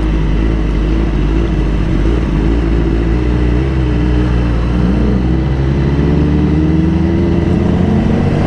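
Honda CBR1000RR-R's inline-four engine running under way, its pitch wavering and then rising steadily near the end as it accelerates.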